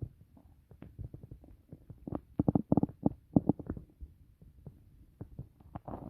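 Stomach and intestines gurgling during digestion after a meal: a run of quick, irregular gurgles and pops, densest about two to four seconds in.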